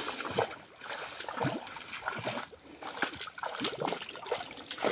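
A hand working in wet mud and shallow water, making irregular wet splashes and squelches.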